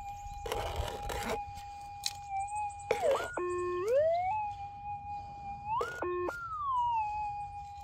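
Minelab GPX pulse-induction gold detector holding its steady threshold tone. It swings in pitch as the scoop of dirt with the target is passed over the coil, dipping and climbing back about three seconds in, then jumping up and sliding back down about six seconds in: the target signal of a gold nugget in the dirt. A short rustle of scooped soil comes about half a second in.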